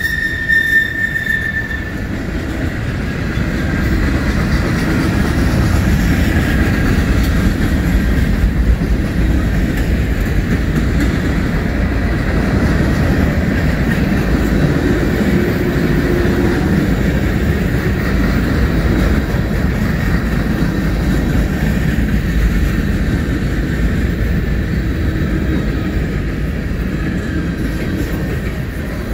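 Cars of a long mixed freight train (tank cars, covered hoppers, centerbeam flatcars) rolling past: a steady, heavy rumble of steel wheels on rail. A high wheel squeal fades out about two seconds in.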